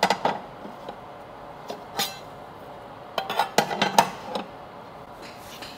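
A tray clinking and knocking against the clear acrylic positioning jig and the bed plate of a fiber laser marker as it is set and nudged into place: a few knocks at first, one about two seconds in, then a quick run of clinks around three to four seconds.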